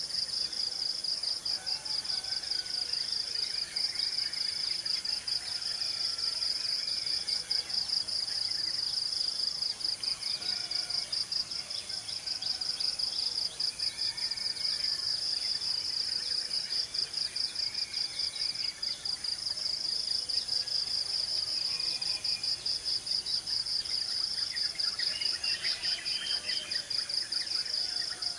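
Insects, cricket-like, trilling in a steady, rapid, high-pitched pulse, with faint bird chirps scattered through it.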